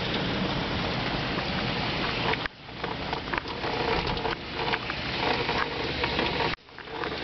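Heavy rain hissing steadily. It drops out abruptly twice, about two and a half and six and a half seconds in, then comes back.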